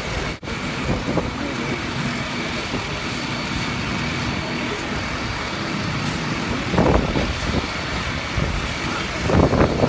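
An engine runs steadily with a constant hum, with a few shouted voices briefly around the middle and near the end.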